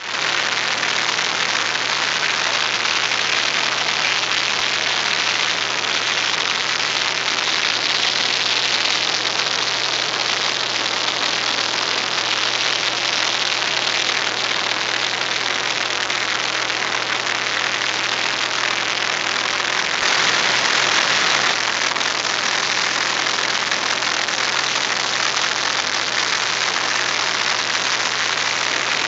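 Cabin sound of a single-engine light aircraft in flight: the propeller engine drones steadily under a loud rush of airflow. The sound swells slightly about twenty seconds in.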